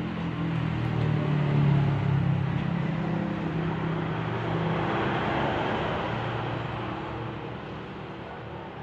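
A motor vehicle's engine passing by: a low hum that grows louder over the first two seconds or so, then slowly fades away.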